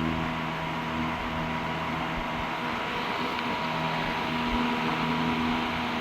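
Vintage 16-inch table fan, its blade marked as though made in the late 1950s by Meier Nu-Air, running steadily: a motor hum under the rush of air from the blades.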